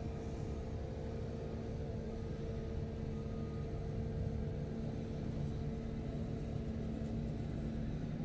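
Tracked sidewalk tractor with a front-mounted snowblower running steadily as it clears snow: a constant engine rumble with a steady hum. A higher tone fades out about halfway through.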